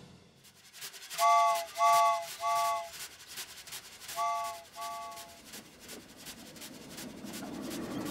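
Steam-train sound effect: a multi-chime train whistle gives three short toots, then two more, over a faint steady chuffing.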